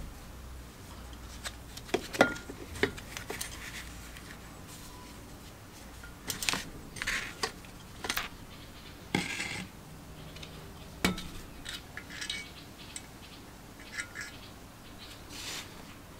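Irregular clinks, taps and short scrapes of a screwdriver and small metal parts as the ignition points and condenser are unscrewed and lifted off a Robin EC10 two-stroke engine's magneto plate.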